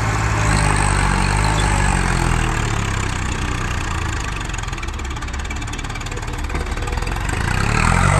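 Tractor diesel engine running. Its note drops away and softens in the middle, then builds again near the end.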